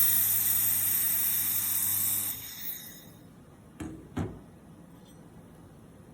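Handheld laser welding machine running: a loud steady hiss over a low hum that stops about two seconds in, the hiss fading out over the next half-second. Two sharp clicks follow about a second later.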